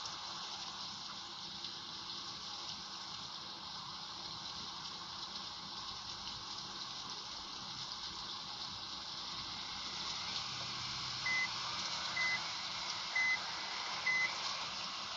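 Steady rushing hiss, with four short, high electronic beeps about a second apart near the end.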